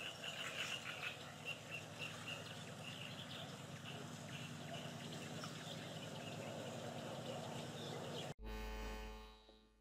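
Quiet outdoor reed-bed ambience: a steady hiss with a run of short, high chirps from a small animal in the first few seconds. About eight seconds in it cuts off abruptly and gives way to a low hum that fades out.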